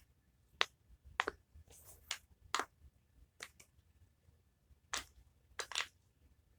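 Silicone duck pop-it fidget toy being pressed, its bubbles popping in a string of irregular sharp clicks about a second apart.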